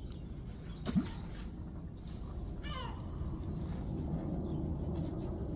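A bird of prey gives a single descending, quavering mewing call about three seconds in.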